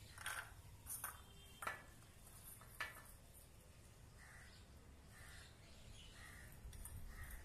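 Chickpeas dropping into a steel bowl, giving a few sharp clicks in the first three seconds. Faint short calls come now and then.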